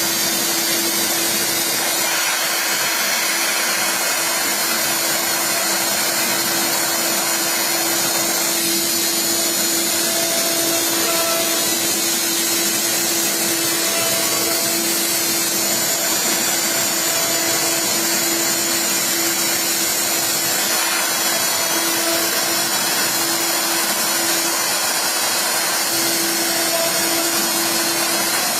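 CNC router spindle running steadily as it cuts acrylic: a continuous hissing machine whine with a steady hum underneath.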